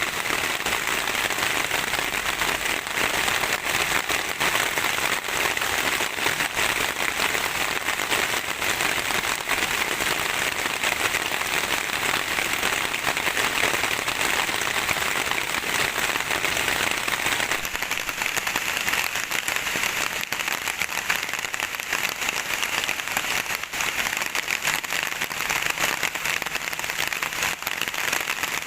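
Steady heavy rain, a dense patter of many drops on a surface. About two-thirds of the way through its tone shifts higher as the deeper part drops away.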